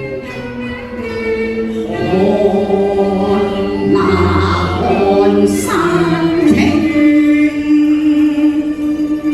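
Cantonese opera song sung by women in the pinghou (natural-voice) style, over a held note from Chinese bowed-string accompaniment; the voice comes in about two seconds in with long, sliding phrases.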